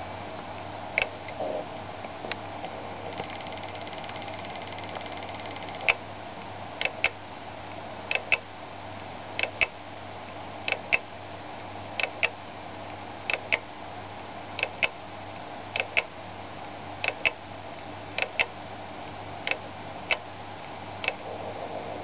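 Seagate Barracuda LP 1.5 TB hard drive clicking, mostly in quick pairs about every second and a quarter, over a steady whir: the sign of a dying drive.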